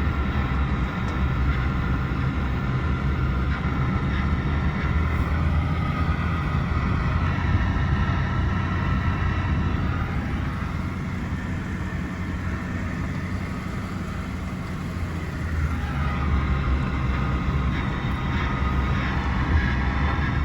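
Pickup truck driving on a dirt road: a steady engine drone with tyre and road noise.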